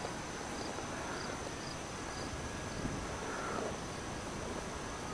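Faint insect chirping, a short high chirp repeating about every half second, over a low steady background hiss.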